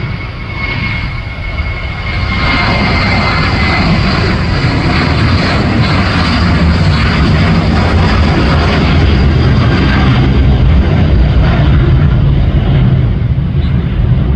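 Boeing 737-700's CFM56-7B jet engines running at high thrust as the airliner departs. A thin whine falls slowly in pitch over the first few seconds while the loudness builds, then the engines settle into a loud, steady rush.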